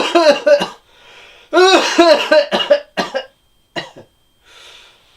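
People coughing deliberately in a staged, mock tribute: a rapid run of voiced coughs at the start, a second run about a second and a half in, then two single coughs.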